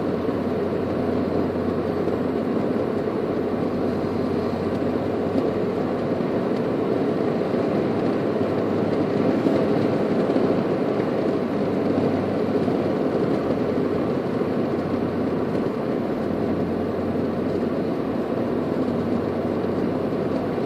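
Steady road and engine noise heard from inside a moving car cruising at an even pace, with no changes in pitch or level.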